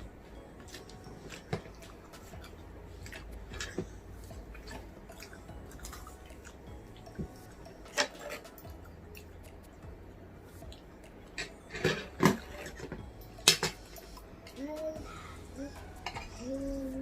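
Cutlery clinking and tapping against plates while eating, in scattered sharp clicks with a few louder knocks. A voice is heard briefly near the end.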